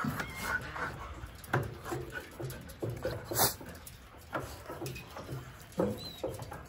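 Two German Shepherd-type dogs at a wire pen gate making a string of short whines and snuffles close up. There is one sharp knock about halfway through.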